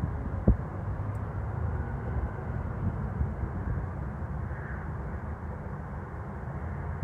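Steady low outdoor rumble, with a single short low thump about half a second in.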